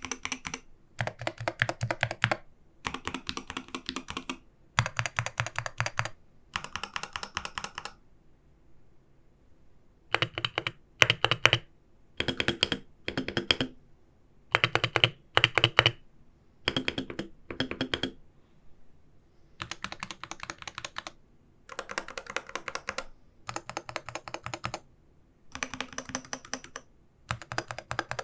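Arbiter Studio Polar magnetic-switch gaming keyboard being typed on in quick bursts of keystrokes, each burst about one to two seconds long with short pauses between. There is a longer pause of about two seconds roughly a third of the way in.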